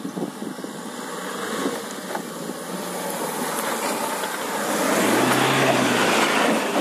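Mahindra XUV500 AWD's diesel engine working hard as the SUV climbs a steep dirt slope, tyres spinning and scrabbling in loose soil. The noise grows steadily louder as it comes close, loudest near the end.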